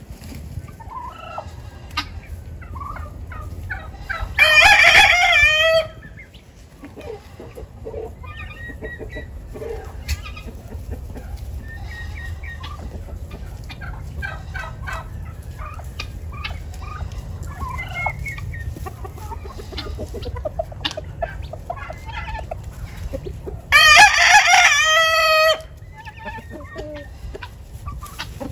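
A rooster crows twice, once about four seconds in and again near the end, each crow lasting about a second and a half. Between the crows, chickens cluck in short, scattered calls.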